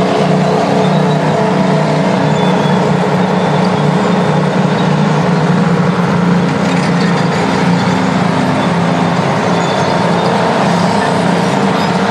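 Detroit Diesel engine of a vintage Terex earthmover running steadily.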